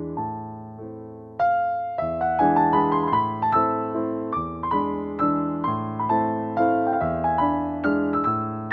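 Background piano music, its notes struck and left to ring, growing louder and fuller about a second and a half in.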